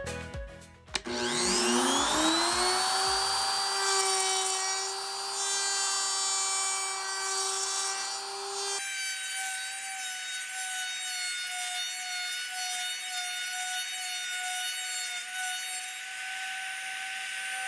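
Ridgid compact trim router with a dado bit spinning up with a rising whine about a second in, then running at a steady high pitch while the bit cuts into the pine, with a hiss of wood being routed over the motor tone.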